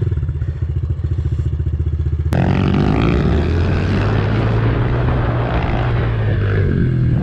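Honda CRF110 pit bike's small single-cylinder four-stroke engine idling with an even beat, then about two seconds in it turns suddenly louder and fuller as the bike is ridden under throttle, with wind and ground noise mixed in.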